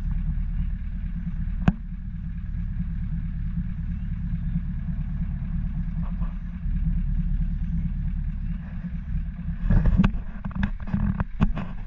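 Vehicle engine idling with a steady low hum. A sharp click about two seconds in, and a quick run of knocks and clicks near the end.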